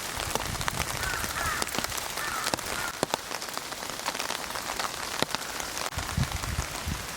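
Steady rain with many separate drops ticking sharply. A low rumble comes in about six seconds in.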